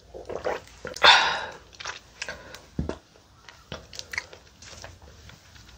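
Close-miked mouth sounds from the last mouthful, with small clicks, and a short papery rustle about a second in as a paper tissue is handled.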